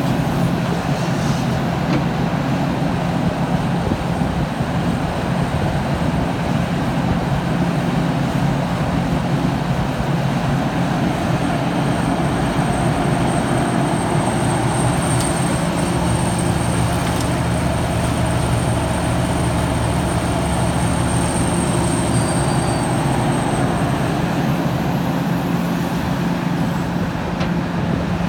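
Liebherr 974 hydraulic excavator's diesel engine running steadily under load as the machine swings, dumps soil into a dump truck and digs again, with a thin high whine through the middle.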